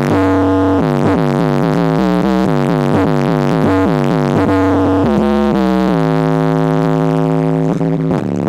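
Loud bass-heavy electronic music played through a car stereo driving two 12-inch Pioneer shallow-mount subwoofers: a synth melody over stepping low bass notes, settling into long held notes about six seconds in.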